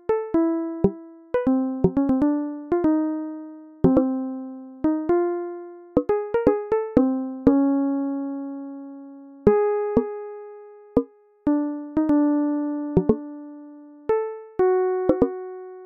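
Background music: a slow, sparse melody on an electric-piano-like keyboard, single struck notes that each ring and fade away.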